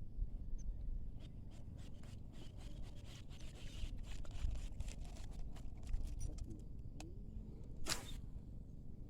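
A quick run of light clicks and scrapes, then a short sharp rasp near the end, over a steady low rumble.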